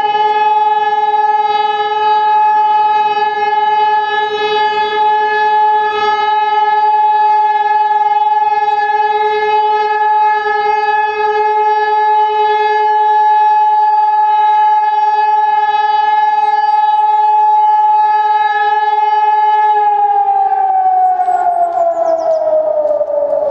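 Hörmann ECN 2400 electronic civil-defence siren, a three-row 2400-watt horn array, sounding one long steady tone: the continuous-tone signal, which in Germany is the all-clear (Entwarnung). About 20 seconds in, the tone starts to wind down, falling steadily in pitch.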